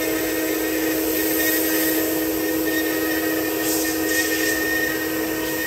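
The spindle of an STM1325D-4A 4-axis CNC wood router runs with a steady whine as its bit carves a block of wood, with cutting hiss over it.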